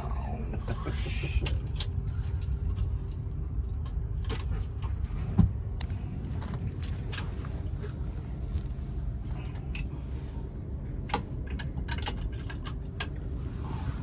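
Scattered metal clicks and clinks of tools at work while a replacement alternator belt is tightened on the boat engine, with one louder knock about five seconds in, over a steady low rumble.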